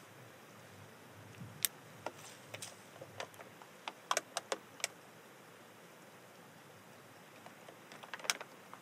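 Light clicks and crinkles of small things being handled close by, scattered over the first five seconds with a last little cluster near the end.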